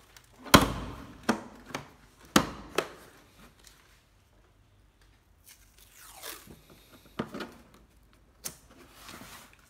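Ryobi 12V cordless drill driver being handled: several sharp knocks and clicks, then a short faint whir about six seconds in.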